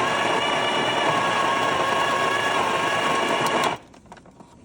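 Coffee bean grinder running, grinding beans into an espresso portafilter: a steady motor whine with a grinding rasp that starts abruptly and cuts off after about four seconds.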